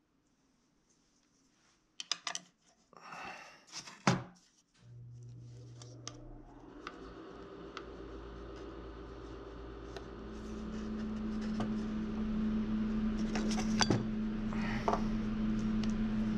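Clicks and rustles of wire being bent and laid on paper on a wooden worktable, a few seconds in. Then a steady machine hum starts suddenly and slowly grows louder, with a couple more light clicks near the end.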